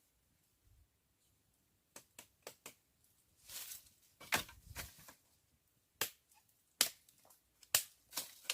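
Irregular sharp clicks and knocks, about eight in all, with a short rustle between them near the middle.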